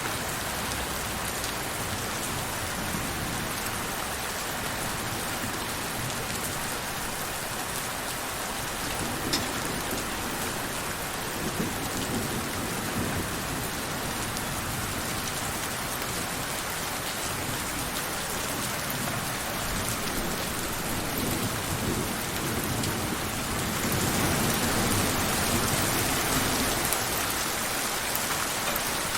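Steady rain falling in a dense, even patter. A low rumble swells in with it about three-quarters of the way through, and the whole sound grows louder for a few seconds.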